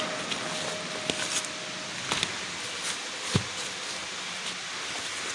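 Rustling with scattered light clicks and knocks as a pile of used handbags, purses and school bags is shifted around by hand.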